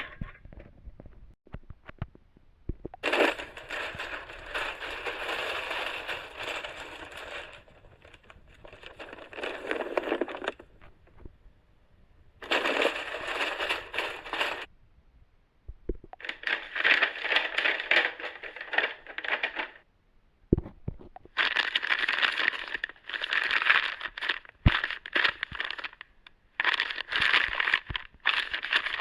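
Crinkly material being crumpled and crushed by hand in about five separate bursts, each with a dense crackling texture.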